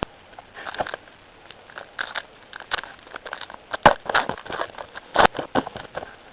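Trading cards being handled and flipped through: irregular rustles and light snaps of card stock sliding over card stock, with the two sharpest snaps about four and five seconds in.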